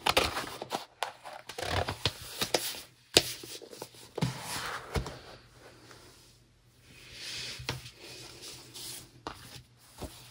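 Hands handling an album's card CD sleeve and paper inserts: paper and card rustling and sliding, with scattered taps and clicks, the sharpest about three seconds in.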